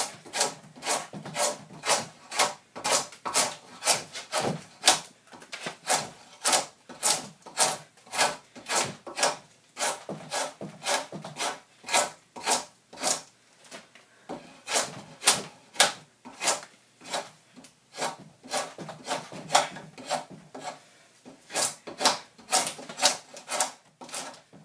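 Draw knife shaving wood from the end of a log to form a round tenon: short, quick scraping strokes, about two a second.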